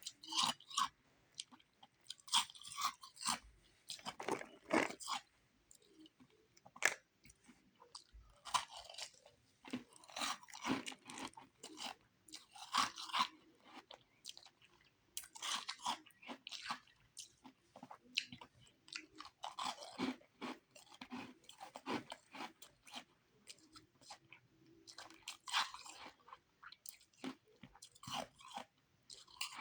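Close-up crunching and chewing of refrozen powdery ice: repeated crisp bites and crunches, in irregular clusters, as the ice is chewed.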